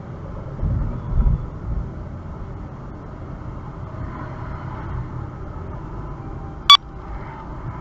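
Automatic car wash machine running: a steady low rumble with a few heavier thumps about a second in, and one sharp click near the end.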